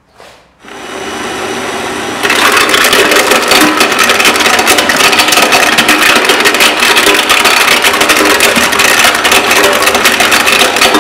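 Electric drill starting about half a second in and running steadily as it drives a GRK-50 walnut cracker. About two seconds in, walnuts start going through the cracker and their shells break in a loud, dense crackling over the drill's motor.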